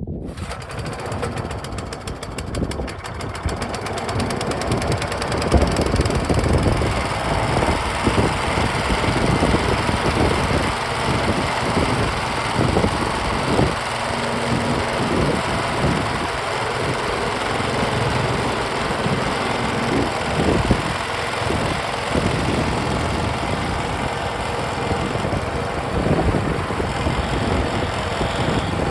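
Small gasoline engine of an old trommel wash plant starting up and running, growing louder over the first several seconds and then holding a steady run.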